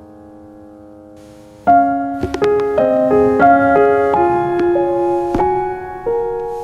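Background piano music: a soft held chord, then a melody of separate notes that comes in louder about a second and a half in.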